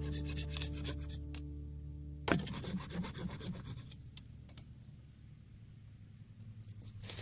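Fiskars pruning saw rasping through a wooden pole in repeated strokes, under background music. About two seconds in there is a sharp knock and the music stops, leaving fainter, sparser saw strokes.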